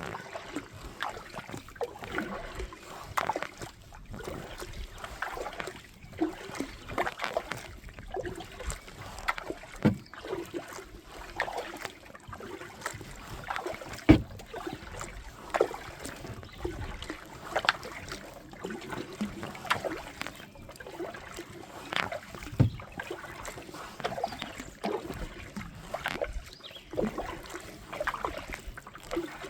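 Kayak on a river with water splashing and dripping around it: many small irregular splashes, with one louder hit about fourteen seconds in.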